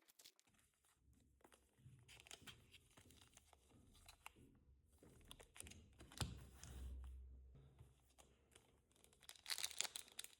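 Faint crinkling and tearing of a Pokémon TCG blister pack's packaging being opened by hand, with scattered small clicks and rustles.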